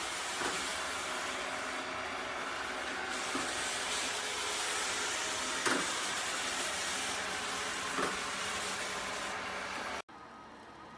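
ILIFE V10 robot vacuum cleaning, with the steady whirring hiss of its suction motor and brushes and a few light knocks. The sound cuts off abruptly near the end, leaving a much quieter background.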